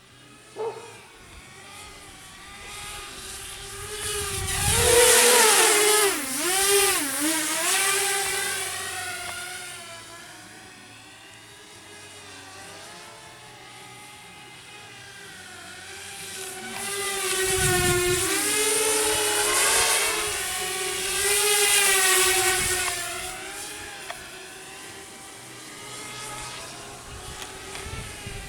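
Walkera F210 racing quadcopter's motors and propellers whining, the pitch wavering with throttle. It sweeps loudly past twice, about five seconds in and again from about seventeen to twenty-three seconds, fading between passes.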